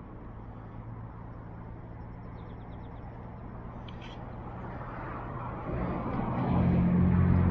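An engine running with a steady low hum that swells to much louder near the end.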